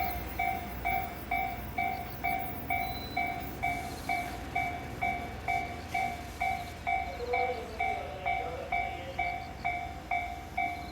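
Japanese railway level-crossing warning bell ringing steadily, about two dings a second, with the low rumble of a train underneath.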